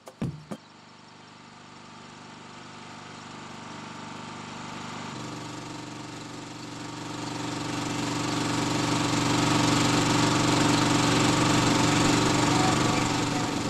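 Small portable engine-driven generator running steadily, with the hiss and crackle of an arc welder's arc on top. The sound grows louder over the first several seconds, and the engine note gets heavier about five seconds in.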